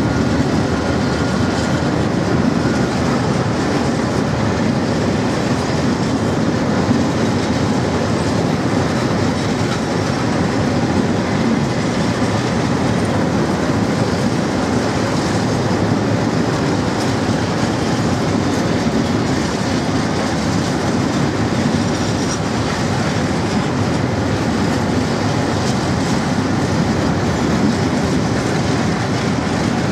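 Empty open timber wagons rolling past on the track: a steady, loud run of steel wheels on the rails, with clickety-clack as they cross the rail joints.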